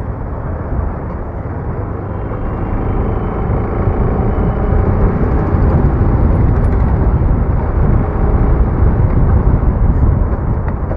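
Motorcycle being ridden at speed, with wind rushing over the microphone and the engine underneath. The sound grows louder through the middle as the bike picks up speed.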